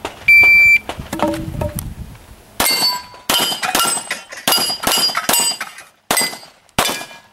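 Shot-timer start beep, then a fast string of about a dozen pistol shots over four seconds, each hit answered by the ringing clang of steel plates and poppers.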